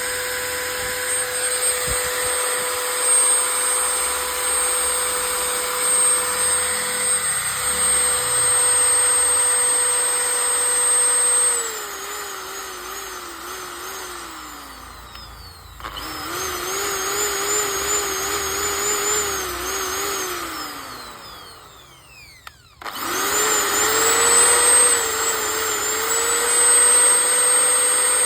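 Bosch 550 W 13 mm electric drill's motor whining at a steady high speed, then its speed drops and wavers. It winds down and starts up again twice: once about halfway through, and once with a falling whine to a stop about three-quarters through before spinning back up to full speed.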